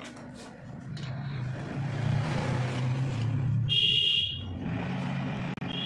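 A motor vehicle's engine rumble that swells over the first few seconds and then eases, as if a vehicle is passing close by. About four seconds in comes a short, high beep.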